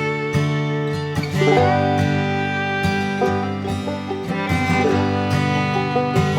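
Background instrumental music in a bluegrass or country style, with plucked guitar and banjo over a steady bass.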